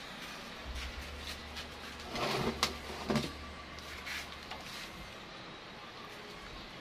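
Handling noises from a taped root-over-rock bonsai in its pot being turned: scrapes and knocks loudest around the middle, over a low rumble.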